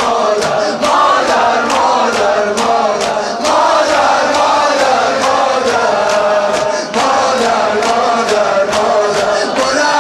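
A male eulogist chanting a Shia mourning lament into a microphone, over the mourners' sharp, rhythmic chest-beating slaps, a little over two a second.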